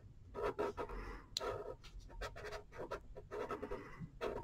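Quick, irregular back-and-forth scribbling of a red colouring tool on paper, several short strokes a second.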